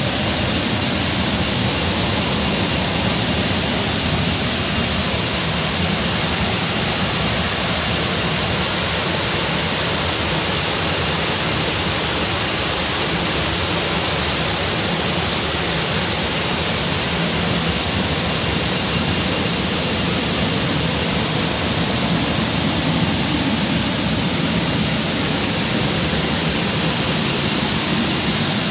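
Steady rushing water, a constant even hiss with no breaks or changes.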